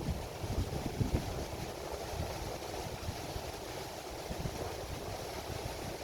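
Wind buffeting the microphone in irregular gusts, strongest in the first second or so, over the steady wash of waves on a sandy beach.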